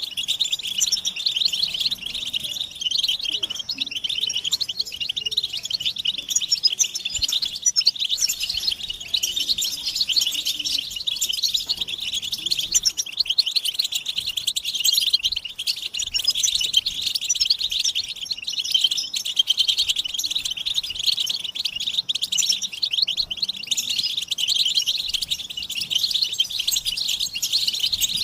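A chorus of European goldfinches twittering together, a dense unbroken run of quick chirps and trills. These are the excited mating and readiness calls of the species.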